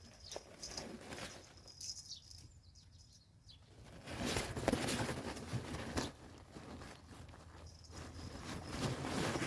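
Faint birdsong outdoors, with a stretch of rustling and scuffling about four seconds in and again near the end.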